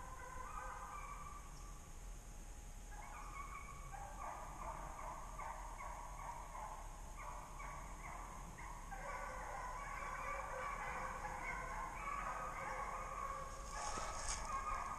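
A pack of deer hounds baying together in the distance while running a deer, many voices overlapping, getting louder toward the end as the chase comes closer.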